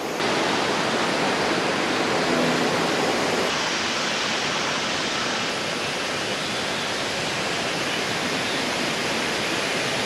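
Steady rush of flowing mountain-creek water, an even hiss with no breaks.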